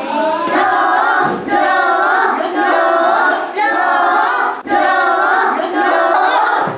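A group of young children singing together in chorus, in short phrases of about a second each.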